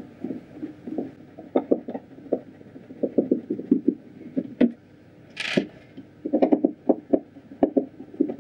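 Hand screwdriver backing wood screws out of a subwoofer's amplifier panel: clusters of small clicks and knocks as the bit turns and is reseated, with a short hiss about five and a half seconds in.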